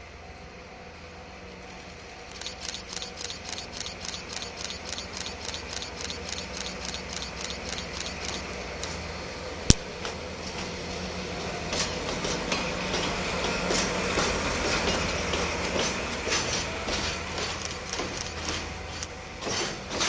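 Freight train pulling away: the wagons' wheels clack rapidly and regularly over rail joints from about two seconds in, under a steady low hum. A single sharp knock comes about halfway. The clacking then grows louder and denser as the cars pass.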